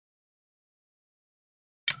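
Dead silence, with no sound at all, then background music cuts in abruptly near the end with sharp struck notes.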